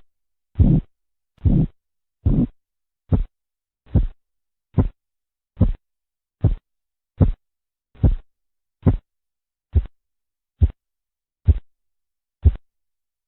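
Korotkoff sounds heard through a stethoscope over the artery below a deflating blood-pressure cuff: a regular pulse of about one beat every 0.8 s. The early beats are longer and fuller, and the later ones are short sharp taps. The sounds stop about 12.5 s in; their disappearance marks the diastolic pressure.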